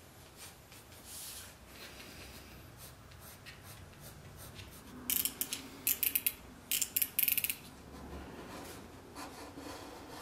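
Pencil scratching on paper, then several quick runs of sharp clicks from the slider of a snap-off utility knife as its blade is ratcheted out. Near the end comes the knife blade scraping through the paper.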